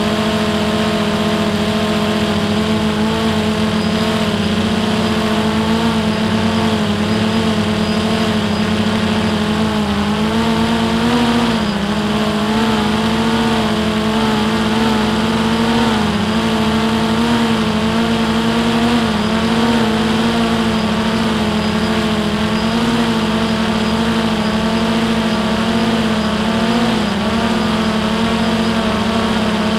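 A drone's electric motors and propellers whining steadily in flight, heard close up from the camera on the drone itself; the pitch wavers slightly now and then as the motors adjust.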